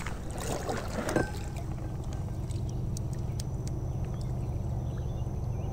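Kayak being paddled: a double-bladed paddle dipping and pulling through the water, with light splashes and drips against a steady low rumble.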